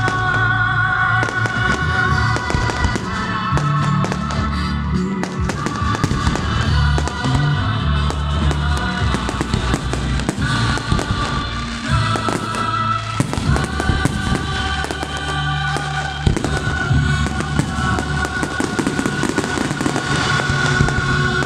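Aerial fireworks shells bursting and crackling again and again, with music playing underneath.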